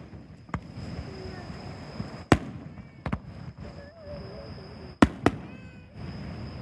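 Fireworks shells bursting with a handful of sharp bangs, the loudest about two seconds in and about five seconds in, over the chatter of onlookers.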